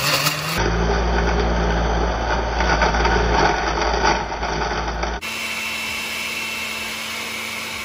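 Oster countertop blender running, its glass jar churning ice and leafy greens into a green smoothie. For the last few seconds it runs quieter and steadier, the mix now smooth.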